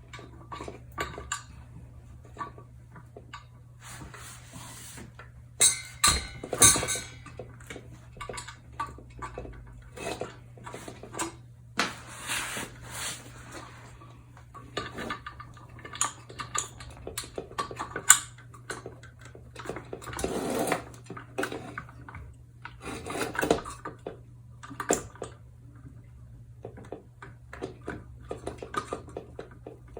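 Ceiling fan hardware being handled and fitted: irregular metal clinks, knocks and short rattles as the downrod is worked into its mounting holder, with a sharp click about 18 seconds in. A faint steady low hum runs underneath.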